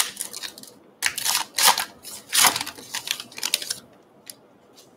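A baseball card pack's paper wrapper being torn open and crinkled by hand, in a run of crackly rustles that dies down about four seconds in, followed by a couple of faint ticks.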